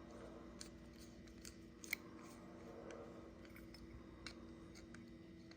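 Faint, scattered small metal clicks of a flathead screwdriver tightening the set screw on a hole saw arbor, one a little louder about two seconds in, over a faint steady hum.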